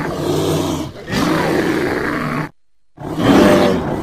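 Brown bear growling and roaring in deep, rough bouts that start and stop abruptly: one breaks off about a second in, another ends around two and a half seconds, and the last starts about three seconds in.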